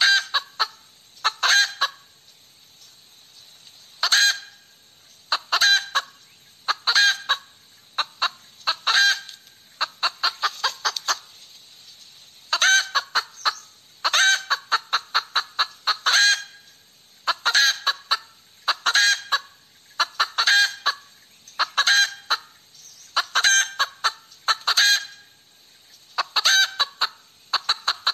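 Hen cackling: repeated runs of sharp clucks, a few quick notes in each run, every second or two with short pauses between.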